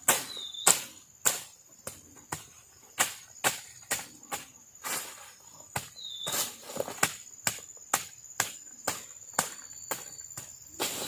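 Night forest insects keep up a steady high-pitched trill, with a short high call repeating every few seconds. Over it runs a series of sharp knocks or crunches, roughly two a second.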